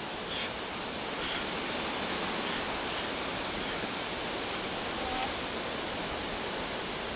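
Steady, even hiss of outdoor background noise, with a short high hiss about half a second in.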